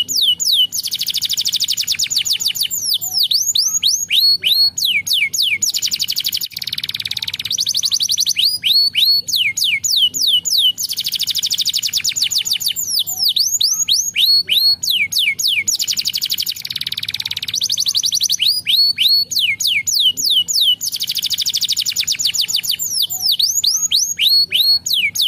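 Domestic canary singing: runs of quick, down-slurred whistled notes alternating with long, rapid rolling trills, one phrase after another without a break.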